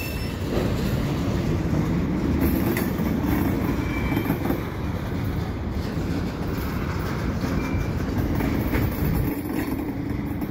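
Double-stack container cars rolling slowly past on yard tracks as they are shoved into a holding track, making a steady rumble of steel wheels on rail, with a few faint clicks and two brief faint wheel squeals.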